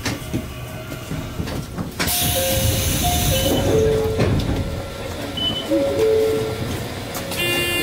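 Mizuma Railway 1000 series electric train coming to a stop at a station, with a sudden loud hiss about two seconds in. Short steady tones, stepping from one pitch to another, sound over the rest.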